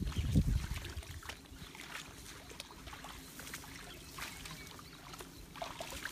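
Footsteps wading through shallow water and wet grass: irregular splashing and sloshing with leaves brushing, with heavier low thuds in the first half second.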